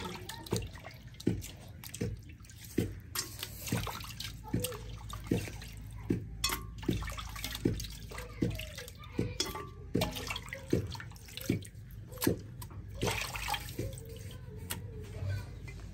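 Water splashing and sloshing in a metal basin as salted dried fish is rinsed and worked by hand, with short splashes a little more than once a second.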